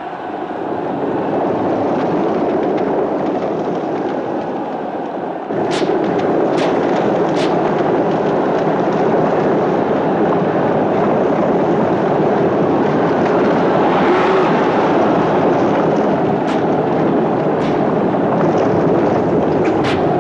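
Chariot race: teams of galloping horses and rumbling chariot wheels making one dense, steady din, with a handful of sharp cracks scattered through. The din gets louder about five and a half seconds in.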